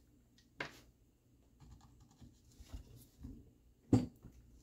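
Small screwdriver working a screw out of a plastic block on an RC truck chassis: faint scratching and ticking, with a sharp click about half a second in and a louder tap near the end.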